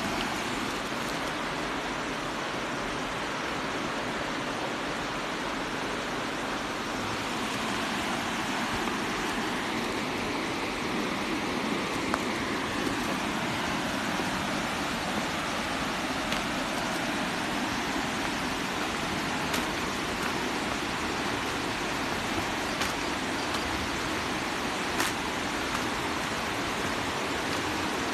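Steady rush of a tall waterfall, about 50 metres high, its water pouring down without a break, with a few faint ticks.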